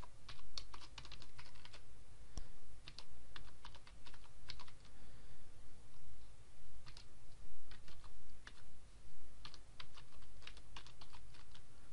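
Typing on a computer keyboard: quick runs of keystroke clicks in irregular bursts, with brief pauses between them.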